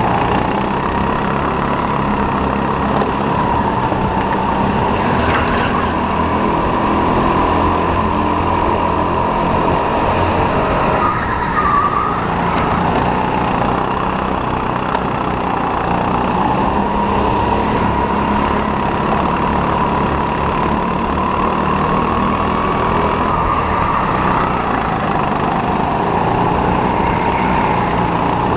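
Racing kart engine heard from on board, running steadily at racing speed with a whine whose pitch dips and rises a little through the corners. A brief click comes about five seconds in.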